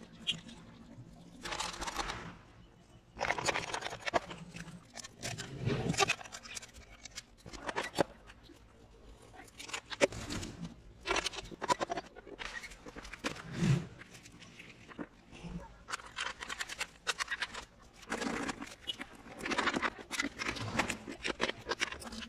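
Irregular clicks, knocks and scrapes of metal parts and hand tools being handled as a steel lawn mower deck is reassembled, with brackets and wheels fitted and bolts driven.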